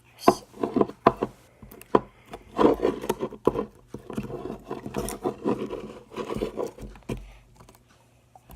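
Slime being pulled out of a plastic container: irregular squelches, clicks and rubbing, stopping about a second before the end.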